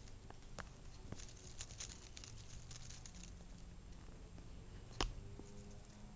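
Faint crackling and light clicks of close handling noise, over a low hum, with one louder knock about five seconds in.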